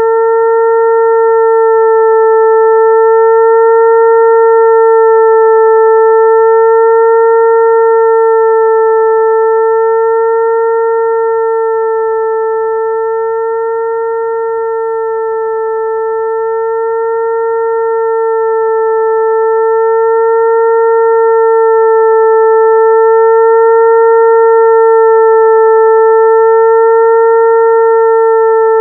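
Mosquito-attracting sound: a steady, mid-pitched buzzing tone with a few overtones, pitched like a mosquito's wing hum. It wavers slightly in pitch and slowly swells louder and softer.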